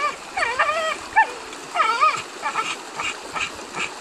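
Pit bull whining in high cries that rise and fall, breaking into short whimpers about three a second in the second half, eager for the fish the man has caught.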